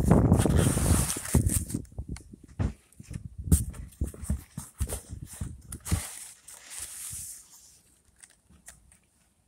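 Handling noise from unpacking: irregular rustles, clicks and knocks, loudest in the first two seconds and dying away near the end.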